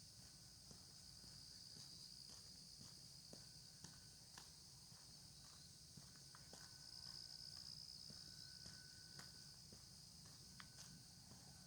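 Faint, steady high-pitched chorus of insects, with soft footsteps at a walking pace.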